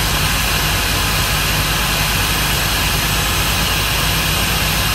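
Spillrite drum-top pneumatic venturi vacuum running at full suction while picking up rocks and gravel: a loud, steady rush of air, with a low steady engine hum underneath.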